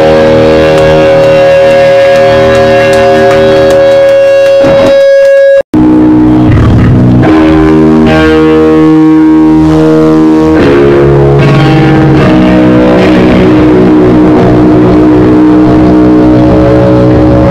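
A live hardcore band playing loud electric guitars, ringing out long held chords that change every second or two. The sound drops out for a split second about five and a half seconds in.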